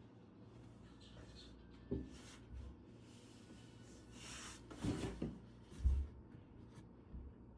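A few soft, dull thumps and bumps, the loudest about six seconds in, with a brief breathy rush of noise just before the fifth second.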